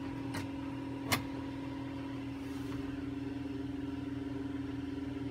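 Steady mechanical hum with a constant pitched tone, and one sharp click about a second in.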